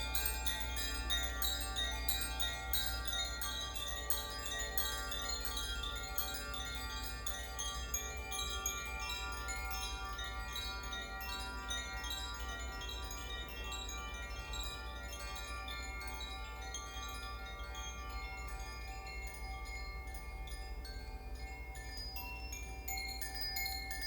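Koshi chimes swayed by hand, the clapper striking the tuned metal rods in a dense run of tinkling notes that ring on and overlap. The strikes thin out near the end and pick up again just before it closes.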